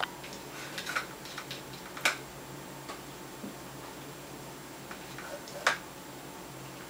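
Irregular sharp clicks and clinks of a small metal food dish as a cat paws at it and eats from it, a cluster near the start, a loud one about two seconds in and the loudest near the end.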